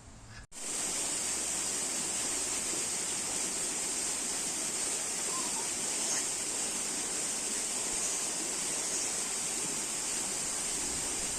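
Steady rushing water, an even loud hiss like a stream or waterfall, starting abruptly about half a second in.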